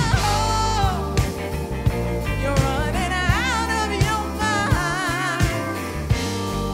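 Live band of drums, bass, keys, two electric guitars, trumpet and trombone playing under a woman's lead vocal, with a steady drum beat.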